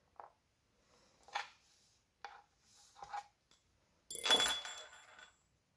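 Handling noise from the opened aluminium iPad rear case and a repair tool: a few soft clicks and scrapes, then a louder clatter with a brief metallic ring about four seconds in.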